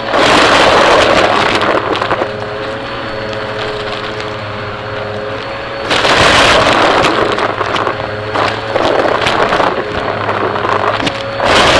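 Vacuum cleaner running close to the microphone: a steady motor hum and whine, swelling four times into loud rushing suction full of sharp clicks and crackles, as of debris rattling up into it.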